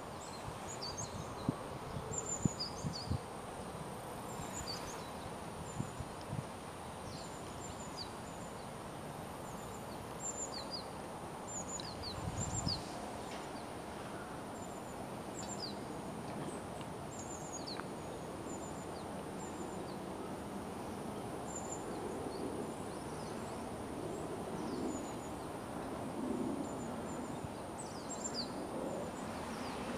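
Japanese tit calling: short, thin, high chirps scattered throughout, over a steady outdoor background hiss.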